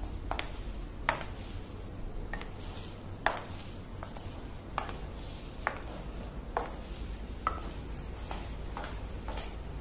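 Footsteps of heeled sandals on a hard tiled floor, a sharp click with each step about once a second, with a faint metallic jingle from thin silver anklets.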